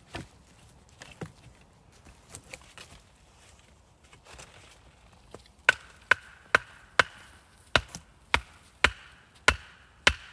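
Wood being struck hard with a tool, chopping or pounding: a few light knocks, then from about halfway a run of about nine sharp strikes at roughly two a second.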